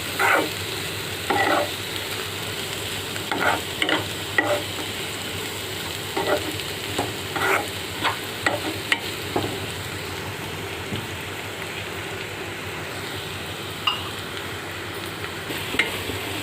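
Shredded cabbage and mixed vegetables (onion, carrot, capsicum, peas) frying in oil in a pan, a steady sizzle. Irregular scrapes and knocks from stirring against the pan are frequent in the first half and only occasional later.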